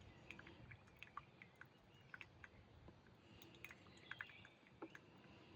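Faint, irregular small ticks of coffee still dripping from a drip coffee machine's filter into the cup after brewing has been switched off.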